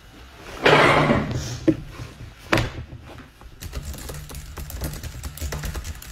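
A loud rustle, then a couple of sharp knocks, then a run of rapid light clicks and taps.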